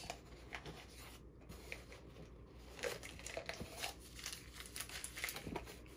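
Faint crinkling and rustling of a small packaging wrapper being handled, with a few light taps, busiest in the second half.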